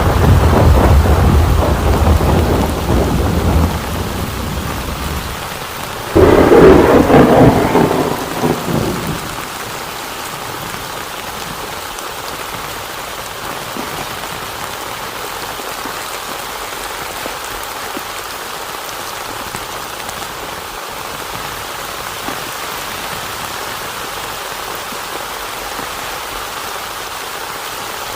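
Thunder rumbling, then a second, louder thunderclap about six seconds in that rolls away over a few seconds. Steady heavy rain follows.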